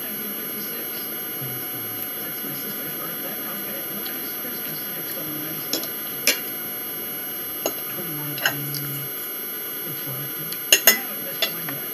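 Metal forks clinking and scraping on dinner plates as pancakes are cut and eaten, with several sharp clinks in the second half, two in quick succession near the end, over a steady electrical hum.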